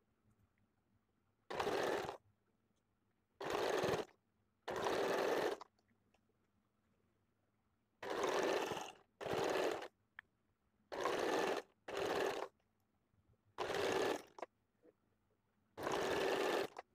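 Domestic sewing machine stitching in short runs: about nine bursts of under a second each, stopping and starting with brief silent pauses between them.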